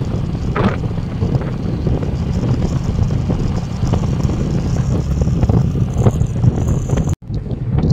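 Wind buffeting the phone's microphone on a moving motorcycle, a loud, steady rush with road noise under it. It cuts out for an instant about seven seconds in, then the wind noise carries on.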